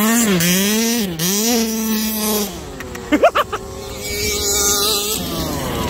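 Two-stroke petrol engine of a 1/5-scale RC buggy revving up and down hard under throttle, then dropping away, with a few short loud rising-pitched sounds about three seconds in. An engine comes back in as a steadier, higher drone that falls in pitch near the end.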